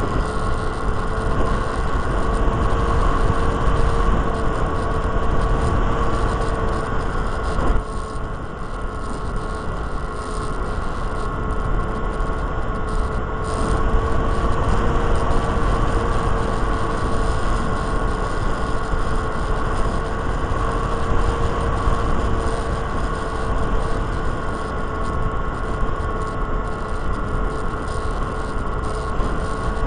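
Electric motor and propeller of a Micro Interceptor RC plane whining at a steady pitch, heard from its onboard camera, with heavy wind rumble on the microphone.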